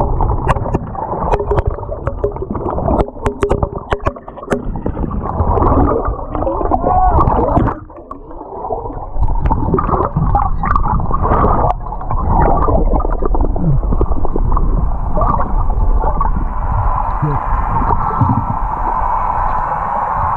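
Lake water heard through a submerged camera: muffled gurgling and churning with bubbles, and sharp knocks in the first few seconds. The sound settles into a steadier muffled rush in the second half.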